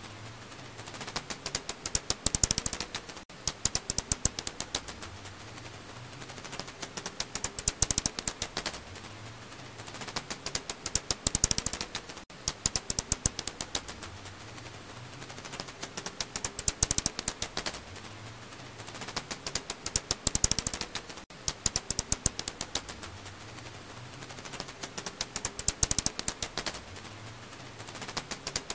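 Recorded calls of a 검은집박쥐 (Alashanian pipistrelle, Hypsugo alaschanicus), heard as rapid trains of clicks that thicken into dense, louder clusters every few seconds over a steady hiss.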